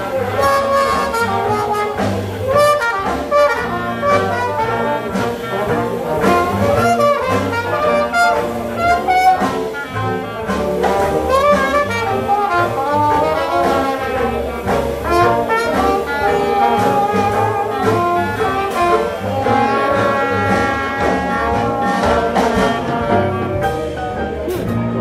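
Small traditional jazz band playing an instrumental passage: trumpet and clarinet lead over trombone, with banjo, double bass and drums keeping a steady beat.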